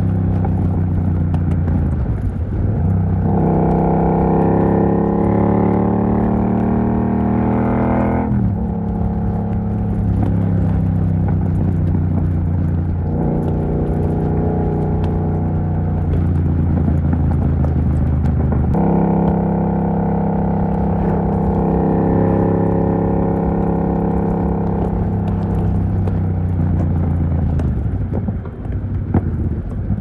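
Yamaha MT-07 parallel-twin with the dB killer removed from its exhaust, pulling hard with its pitch rising, then dropping sharply about eight seconds in. It climbs again and holds a high, steady note before easing off near the end.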